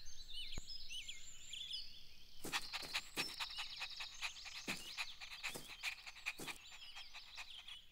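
Faint cartoon outdoor ambience: high bird chirps, with a string of irregular soft clicks starting about two and a half seconds in.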